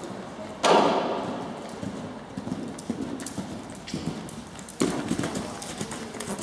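A cantering horse's hooves thud on the sand footing of an arena, with a heavy landing thud from a jump about half a second in and another heavy thud nearly five seconds in.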